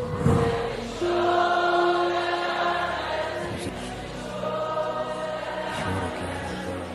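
Slow worship music without a lead vocal: held, choir-like chords that change slowly.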